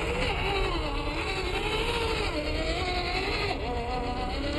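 An excited dog whining in high, wavering tones that rise and fall over and over.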